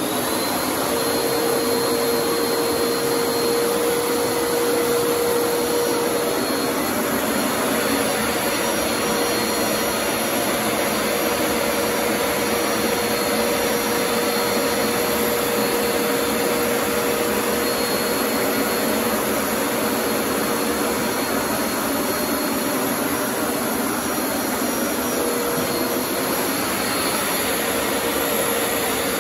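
Hoover SpinScrub upright carpet cleaner switched on and running while it is pushed over a rug: steady, loud motor noise with a constant whine over it.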